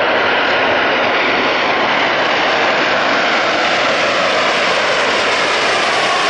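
Airbus A340-600 jet airliner on its landing roll just after touchdown, its Rolls-Royce Trent turbofans running loud and steady in reverse thrust.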